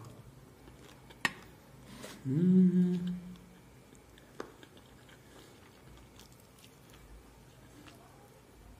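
A man eating: soft chewing and a couple of sharp clicks, and about two seconds in a short closed-mouth "mmm" hum lasting about a second, the loudest sound.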